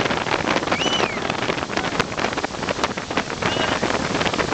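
Rushing spray from a barefoot water skier's feet planing on the water, mixed with wind buffeting the microphone and the towing motorboat underneath. Two short high squeals rise and fall, about a second in and again past the middle.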